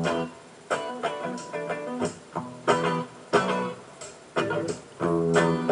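Instrumental music: a plucked string instrument strums chords in a steady, accented rhythm, with a strong stroke about every two-thirds of a second.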